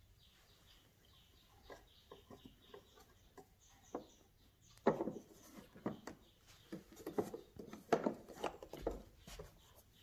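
Hand handling the plastic rear filter compartment of a switched-off AEG Öko Vampyr canister vacuum cleaner: a string of small clicks, taps and scrapes. They are sparse at first and come thicker and louder from about halfway through.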